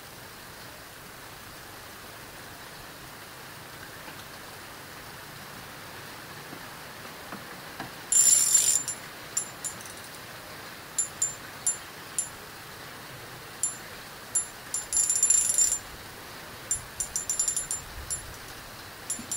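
Sharp metallic clicking from a spinning reel as it is worked, over a steady hiss. The clicks start about eight seconds in: two dense runs of rapid clicking and scattered single ticks.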